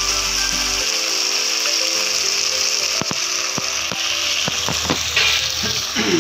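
Food sizzling as it is stir-fried in a steel kadai, with a metal spoon scraping and knocking against the pan now and then.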